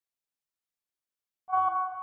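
Silence, then about one and a half seconds in a single incoming-message notification chime from a phone chat app. It is a short, bright ding of a few notes over a soft thump, ringing out and fading as a new message arrives.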